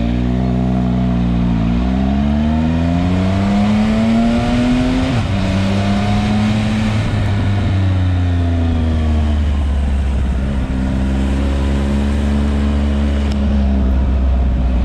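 Triumph Speed Triple 1050 RS's three-cylinder engine under way, the revs rising and dropping with gear changes and throttle. It pulls up through the first five seconds with a shift near the start and another about five seconds in, eases off in the middle, then builds again near the end.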